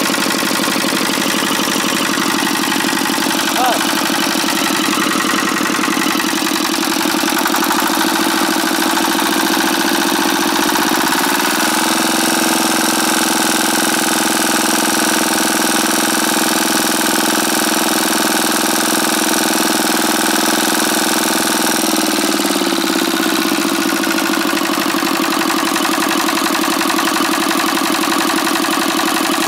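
Single-cylinder diesel engine of a two-wheel walk-behind tractor running at idle. About eleven seconds in, the revs rise and hold steady higher for about ten seconds, then drop back to idle.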